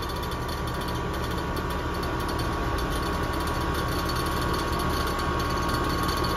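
Rheem heat pump outdoor unit running steadily while the system is being pumped down, with a tapping that comes with a low refrigerant condition.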